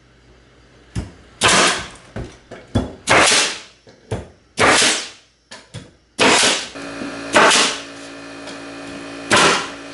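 Pneumatic framing nailer driving nails into subfloor panels: a series of sharp shots, each with a short hiss of exhaust air, roughly one every second or two. About two-thirds of the way in a steady motor hum sets in, the air compressor cutting in to refill.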